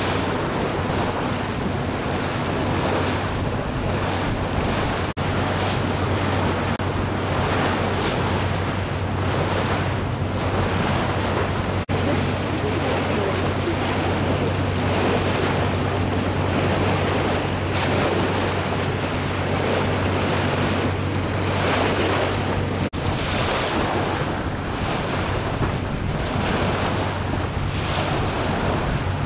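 Open tour boat under way: the engine's steady low hum under the rush of water against the hull and wind buffeting the microphone.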